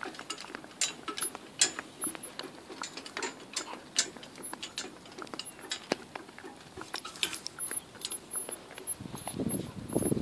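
Miniature Shetland pony's hooves on a tarmac road and its cart and harness rattling: a stream of irregular clicks and knocks. A lower, muffled sound comes in near the end.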